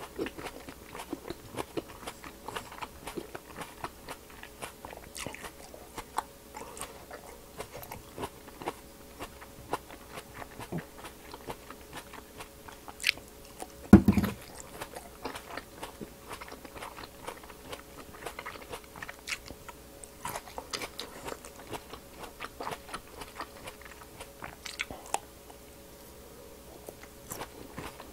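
Green grapes being bitten and chewed close to a clip-on microphone: a steady run of crisp biting and chewing crunches. There is one loud thump about halfway through.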